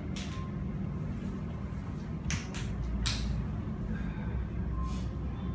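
A towel rubbed over a foot during a massage, giving a few short cloth swishes, over a steady low background rumble.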